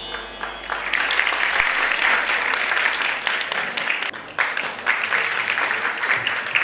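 Music fades out and an audience applauds, the clapping starting about a second in and carrying on steadily.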